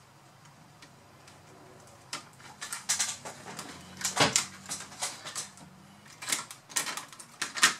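Plastic clicks, taps and rattles of laptop parts being handled as a Lenovo B50-80 motherboard is fitted and pressed into the plastic lower case. It is fairly quiet for about two seconds, then comes a run of sharp, irregular clicks and knocks.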